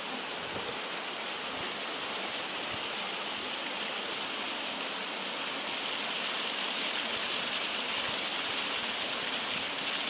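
Small waterfall with a steady rush of falling water, growing a little louder about halfway through.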